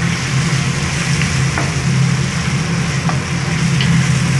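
Shredded chicken and vegetables sizzling in a steel pot as a spatula stirs them, with a few faint scrapes against the pot. A steady low drone of a noisy kitchen exhaust fan runs underneath.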